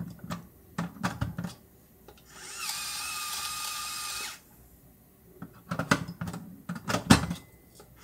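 Clicks and knocks as an Originiq cordless electric spice grinder is handled, then its small motor runs with a steady whine for about two seconds, grinding seasoning into a pot. More clicks and knocks of handling follow near the end.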